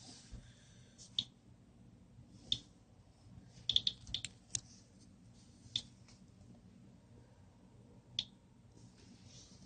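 Geiger counter clicking at a low rate: single sharp clicks at irregular intervals, with a short cluster about four seconds in, roughly one click a second.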